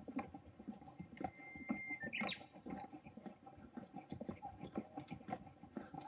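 Footsteps of a hiker walking on a wooden boardwalk, a loose run of light knocks and taps. A single thin high whistle sounds about a second in, followed by a sharp short note just after.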